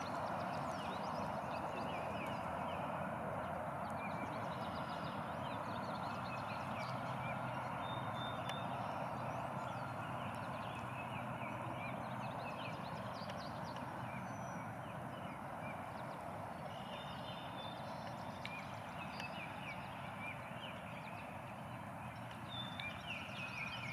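Outdoor ambience: small birds chirping and trilling here and there over a steady low background noise.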